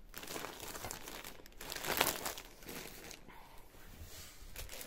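Clear plastic bag crinkling as a pack of yarn skeins inside it is handled and moved, loudest about two seconds in.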